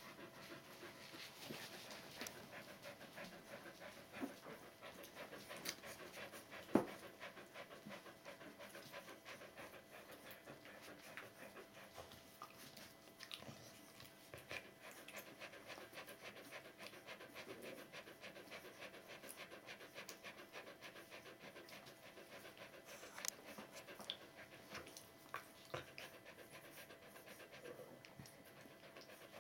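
Adult Border Collie (the puppies' mother) panting faintly and steadily. A few soft clicks and knocks are heard, with one sharp click about seven seconds in the loudest.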